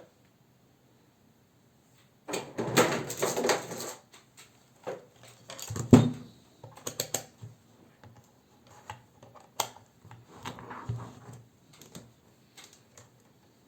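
Hands handling an opened laptop battery pack and its parts: a burst of rustling and scraping about two seconds in, a sharp knock about six seconds in, then scattered light clicks and rattles.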